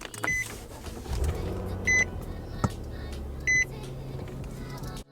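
A car's warning chime beeping three times, about a second and a half apart, over the low steady hum of the car running.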